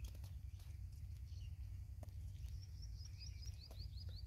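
Rural outdoor ambience with a steady low rumble; in the second half a small bird gives a quick run of short high chirps, about seven a second.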